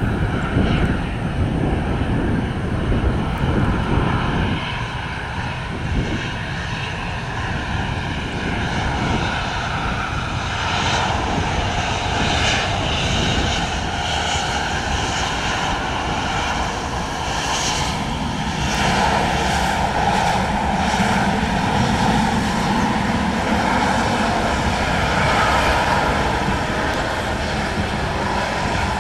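CFM56-7B jet engines of a Boeing 737-800 airliner running steadily, a dense noise whose tone wavers slowly and swells a little in loudness.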